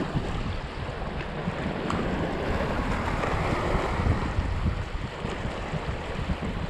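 Strong wind buffeting the microphone in gusts, over the wash of sea surf.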